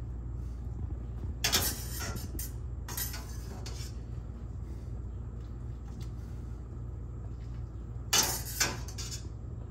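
A metal utensil clanking and scraping against stainless steel pots and pans as pasta is moved from the pot into the pan and tossed: short clattering bursts about a second and a half and three seconds in, and two more near the end.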